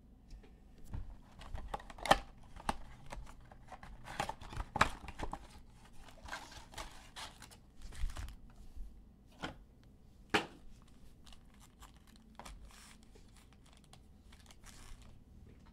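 Plastic wrap and foil card packs tearing and crinkling as a 2020 Panini Prizm football box is opened and its packs handled, with irregular crackles and a few sharper snaps.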